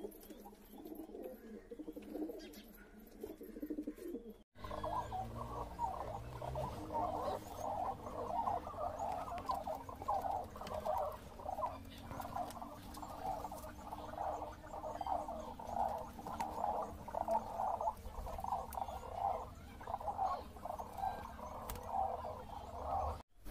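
Domestic pigeons cooing for about the first four seconds. After a sudden cut come many short, rapidly repeated bird calls, higher in pitch, with a low rumble underneath.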